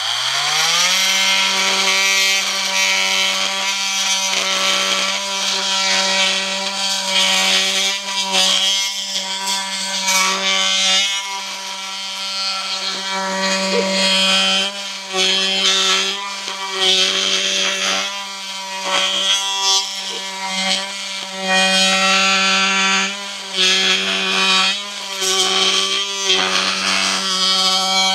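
Milwaukee M18 cordless oscillating multi-tool starting up and cutting dry wood with a 50 mm blade. Its pitch rises to a steady buzzing hum within about a second, and the rasp of the blade in the wood swells and eases as it is pushed into the cut.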